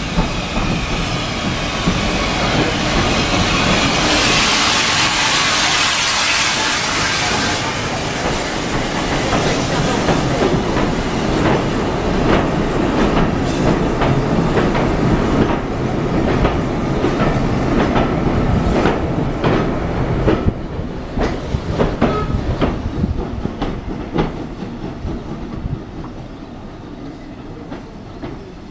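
Steam tank locomotive running into the platform with a burst of steam hiss as it passes close, followed by its coaches rolling by, the wheels clicking over the rail joints. The clicks fade towards the end.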